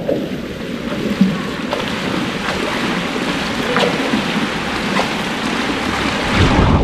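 Swimming-pool water splashing and sloshing close by, churned by a person sitting on the pool edge with limbs in the water.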